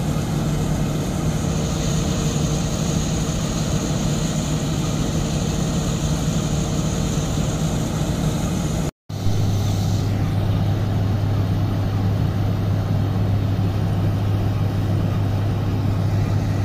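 Combine harvesters' diesel engines running steadily while they unload grain into a truck. The sound breaks off for an instant about nine seconds in and resumes as a deeper steady hum.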